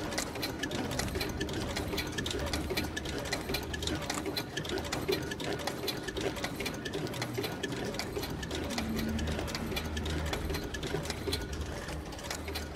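A small machine running with a rapid, steady clatter over a low hum.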